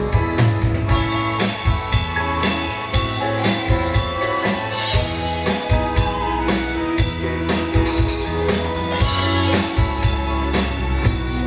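Instrumental band music without singing: a drum kit keeps a steady beat under guitar and sustained held notes.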